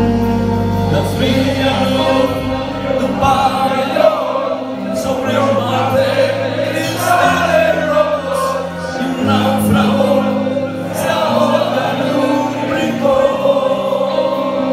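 Live rock band playing a song: electric guitars and bass holding long chords under singing, heard from the audience in a concert hall.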